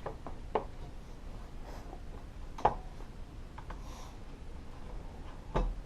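A few light clicks and taps from hard computer parts being handled, the loudest about two and a half seconds in, over a faint steady room background.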